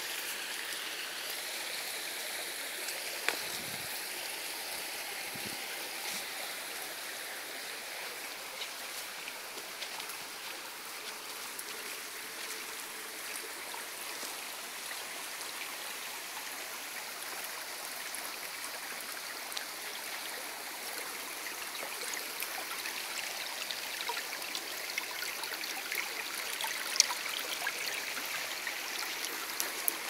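Steady rush of running water from a nearby stream, with a few faint clicks and ticks over it.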